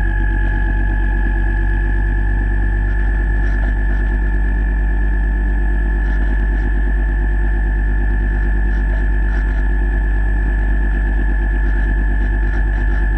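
The RC boat's electric motor running at a steady speed, heard underwater through the camera housing. It gives a constant high whine over a low hum that does not change.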